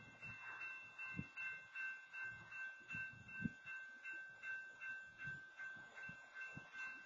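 Railroad grade-crossing warning bell ringing steadily at a little over two strokes a second while the gates are down for a stopped freight train.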